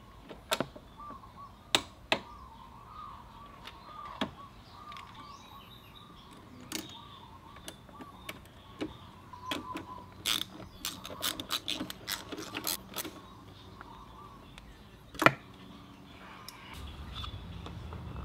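Sharp metallic clicks and clinks of socket wrenches on a Yamaha Zuma 125 scooter's engine as the oil drain bolt is torqued and smaller bolts are tightened, with a quick run of clicks in the middle and one loud clank a little past three quarters of the way through.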